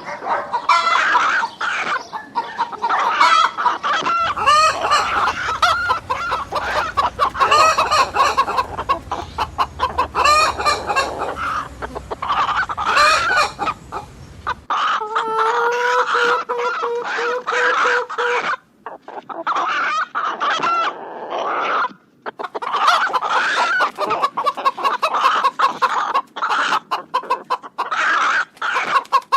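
Chickens clucking and calling in several short clips cut together, with a long steady call held for about four seconds in the middle.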